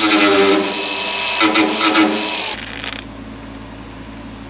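Cordless angle grinder with a thin cutoff wheel cutting through a sheet-steel firewall, its motor whine steady under the cutting noise, which grows uneven as the wheel bites. The grinder switches off about two and a half seconds in.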